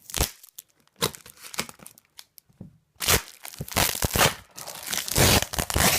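Packing material being crumpled and torn off by hand in irregular rustling strokes, sparse at first and then thick and continuous for the last few seconds.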